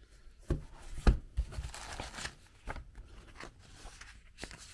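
Laser-cut wooden kit sheets and a paper instruction booklet being handled: a few light knocks and taps, the loudest about a second in, with a brief sliding rustle around two seconds in.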